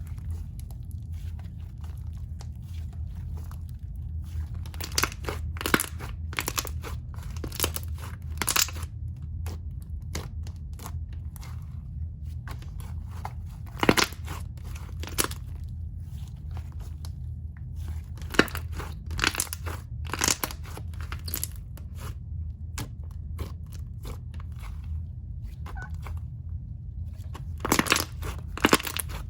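Thick, fluffy sleigh-type chocolate slime mixed with clay pieces being squished and poked by hand, giving irregular crunchy clicks and bubble pops. A steady low hum lies underneath.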